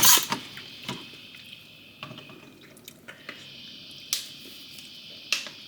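A short rush of noise at the start, then quiet room tone broken by a few sharp clicks or taps, the loudest about four seconds in.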